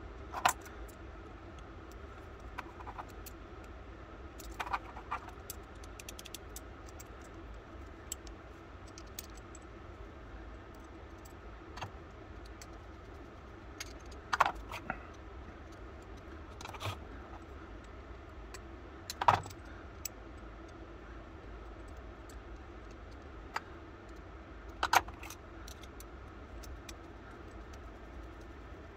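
Small steel lock parts of an antique percussion pistol clinking and clicking against each other and against a screwdriver and locking pliers as the action is put back together. The clicks are scattered and sharp, about seven of them, the loudest roughly two-thirds of the way in.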